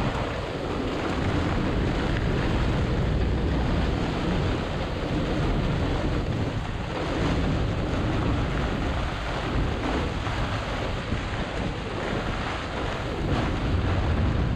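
Microburst storm wind blasting across a sailboat's cockpit, a heavy, steady rumble of wind on the microphone, with the cockpit canvas flapping and rough water rushing past.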